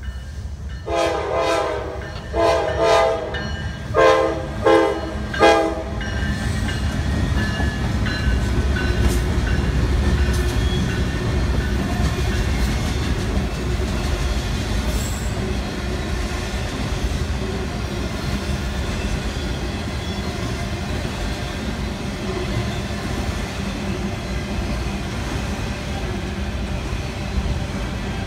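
Norfolk Southern diesel freight locomotive sounding its air horn in a quick series of blasts, two longer ones then three short, followed by the steady rumble and wheel clatter of the freight train rolling past at speed, autorack cars included.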